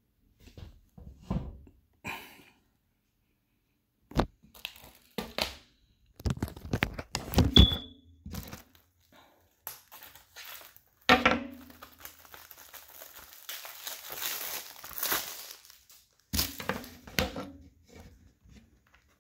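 Plastic shrink wrap on a Blu-ray case crinkling and tearing as it is handled and pulled off, in irregular crackles with a longer run of crinkling past the middle. Several sharp knocks of the hard plastic case being handled.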